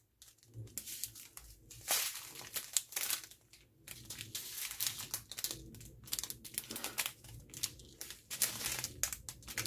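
Small clear plastic bags of diamond-painting resin drills being handled and shuffled in the hands, the plastic crinkling in many short, irregular rustles.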